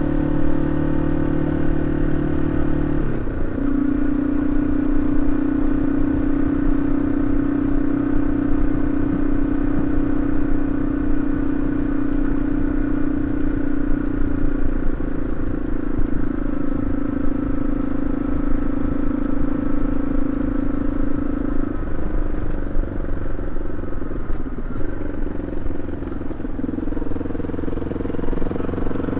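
Yamaha XT225 Serow's single-cylinder four-stroke engine running on the move, a steady note that changes abruptly a few times.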